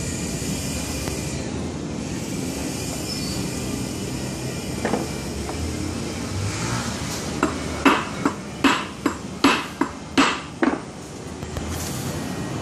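Hammer blows on metal, about nine sharp ringing strikes in quick succession over some three seconds past the middle, against a steady background noise of the fabrication shop.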